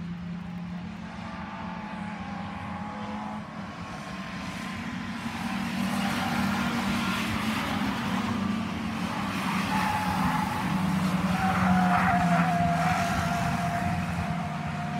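Small stock cars racing round an oval, their engines running steadily, growing louder in the middle of the stretch as cars come round close by.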